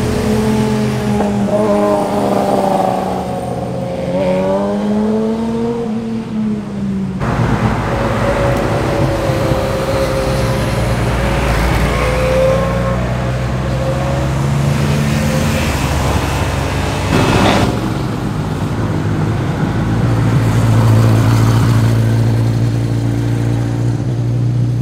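Motorcycle engines as bikes ride past one after another, revving and shifting, the pitch rising and falling as each goes by. The sound changes abruptly twice, about 7 and 17 seconds in, as one bike's sound gives way to another's.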